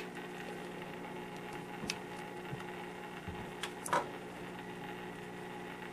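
A steady low electrical hum, with a few faint taps and clicks from thin plastic tubing being handled against the acrylic tank, about two seconds in and again near four seconds.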